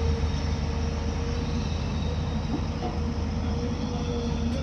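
Hyundai crawler excavator running steadily: a deep, even diesel engine drone with a steady higher hum on top.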